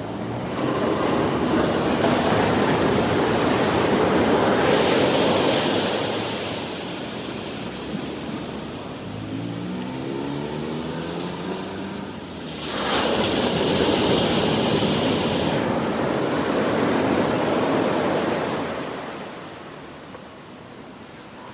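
Pacific Ocean surf on a beach: two waves break and wash up the sand, the first swelling about a second in and the second about halfway through, each running for several seconds before fading back to a low hiss.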